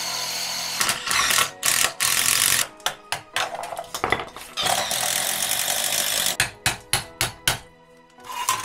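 Metalwork on a rusted steel car frame section: a power tool's steady hiss for about the first second, then a long run of sharp, irregular metallic clacks and knocks, with another stretch of steady tool hiss in the middle.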